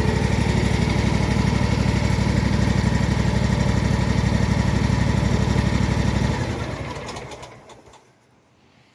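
Cub Cadet Pro Z 500 zero-turn mower's 27 hp Kawasaki V-twin engine running steadily, then shut off about six seconds in and running down to a stop.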